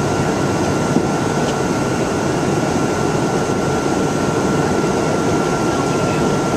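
Steady rumble and rush of a moving vehicle, with a constant thin whine over it.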